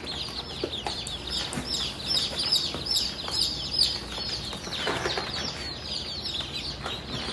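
A brood of baby chicks and ducklings peeping without pause: many high, quick, downward-sliding peeps overlapping one another.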